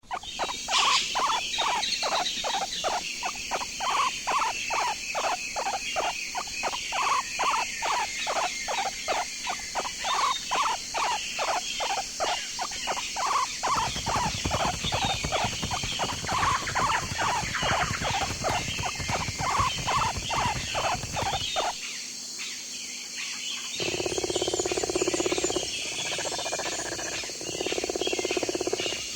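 An animal calling over and over in a steady rhythm, about two to three calls a second, for some twenty seconds. After a short lull near the end, a different, lower-pitched animal sound starts.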